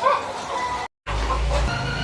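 Ayam ketawa rooster calling, pitched call notes with several stacked tones. The sound cuts out completely for a moment about a second in, and another call starts over a low hum.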